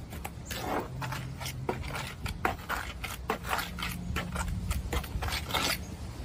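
A hand tool scraping in quick, irregular strokes, about three a second, along the end of a mortar-lined quoin piece.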